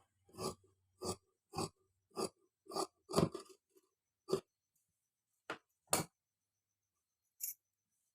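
Tailor's scissors cutting cloth: a run of about six snips, one every half second or so, then four more snips spaced further apart.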